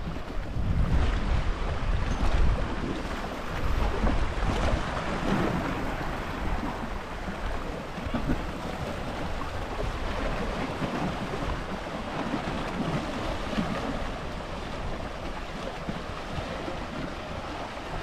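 Sea waves washing onto the shore, with wind buffeting the microphone, heaviest in the first few seconds.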